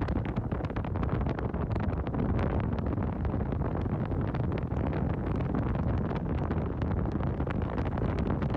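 Wind buffeting the microphone at the window of a moving car, a first-generation Toyota Vios, with road noise beneath: a steady, loud rumble broken by many short crackles.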